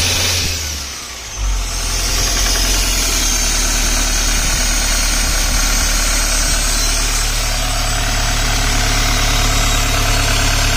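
Toyota Hiace engine running on test after its turbo kit was replaced. It dips briefly about a second in, then comes back and idles steadily at a lower pitch.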